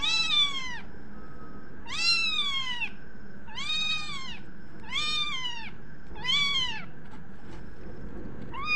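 Young kittens mewing: a series of about six high-pitched meows, each rising and then falling in pitch, roughly one every second and a half.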